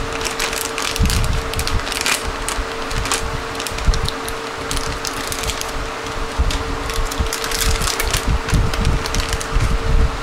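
Crinkling and rustling of a metallized anti-static bag handled and opened by hand, in irregular crackles. A faint steady hum runs underneath.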